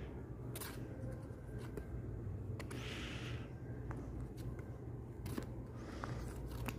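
Bagged comic books being flipped through in a box: soft plastic rustles and slides with light taps, two longer rustles about three and six seconds in, over a steady low room hum.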